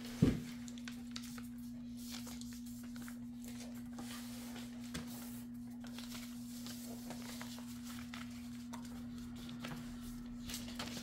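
A sheet of tractor-feed computer paper being folded and creased by hand on a wooden table: faint rustles and scrapes, with one soft thump just after the start. A steady low hum runs underneath.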